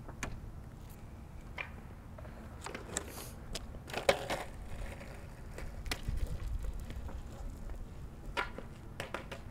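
Longboard wheels rolling over rough asphalt, with a low steady rumble and a few sharp clacks, most of them near the middle and toward the end.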